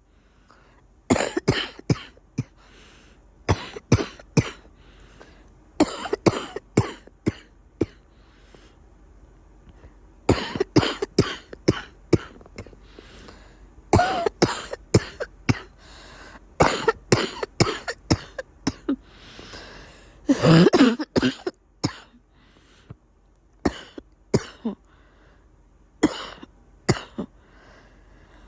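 A person with a congested cough coughing in repeated fits, each fit a quick run of several short coughs, with pauses of a second or two between fits. One longer, louder cough comes about two-thirds through.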